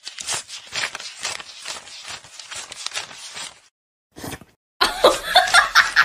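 Paper banknotes being counted by hand, a rapid run of crisp flicks and rustles about four a second that stops after three and a half seconds. A person's voice comes in near the end.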